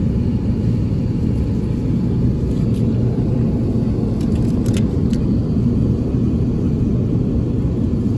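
Airbus A350-900 cabin noise in flight: a steady low rumble. A few faint light clicks come about halfway through.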